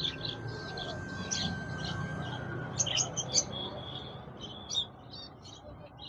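Small caged birds chirping: many short, high chirps scattered throughout, thickest about three seconds in and again near the end.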